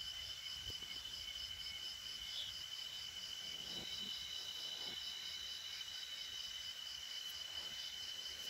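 Night insects calling: one steady high trill, a second call pulsing about three times a second, and a third steady trill joining a few seconds in. A few faint crackles from the burning coconut fibre.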